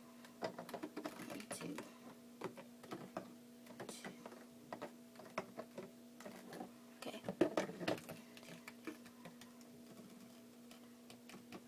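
Small plastic hand sanitizer bottles being picked up and set down on a table, a run of irregular light clicks and knocks, busiest about two thirds of the way through. A faint steady hum runs underneath.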